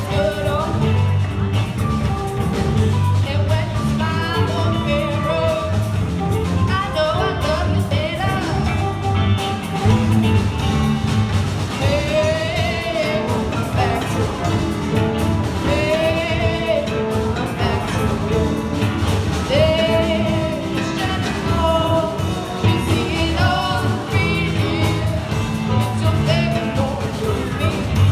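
Live rock band playing a song, with a lead singer holding long, wavering notes over bass and drums.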